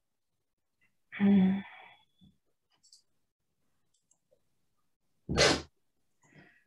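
A woman sneezing twice into her hand: one short burst about a second in, and a second one about five seconds in.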